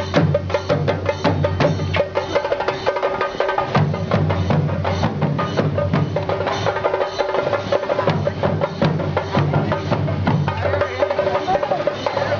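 Fast percussion music: rapid drum strokes in a dense, driving rhythm over a low drum pulse, with a steady ringing tone above. The low pulse thins out briefly a few seconds in and again near the end.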